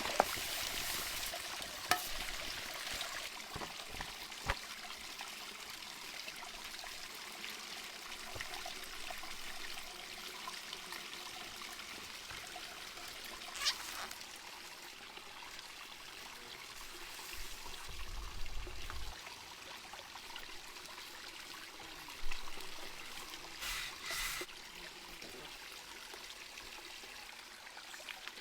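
Steady rushing of running water, as from a stream. A few short knocks and clicks come through it, one each at about 2, 4.5 and 14 seconds in and a couple near 22 to 24 seconds, with a brief low rumble at about 18 seconds.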